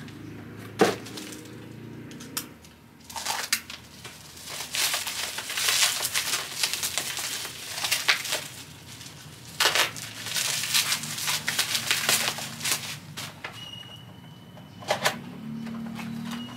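Clear plastic packaging crinkling and rustling in the hands as a wristwatch is unwrapped. It comes in uneven bursts with a few sharp clicks.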